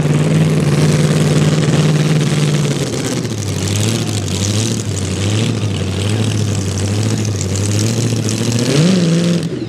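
Super modified two-wheel-drive pulling truck's engine idling at the start line before a pull; the idle settles lower about three seconds in, and near the end the throttle is blipped briefly and drops back.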